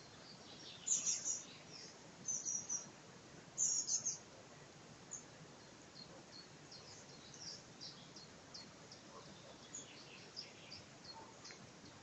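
Small songbirds chirping: three loud bursts of quick, high-pitched chirps in the first four seconds, then many short, fainter chirps over a soft steady background hiss.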